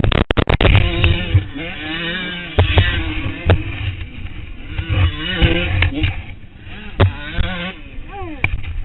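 A winded person gasping and groaning for breath: strained, wavering vocal sounds that rise and fall in pitch again and again, over a low rumble. A quick cluster of sharp knocks comes right at the start.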